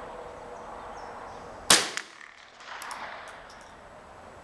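A single sharp crack of a Marlin tube-fed .22 LR rifle being fired, a little under two seconds in, with a short tail after it.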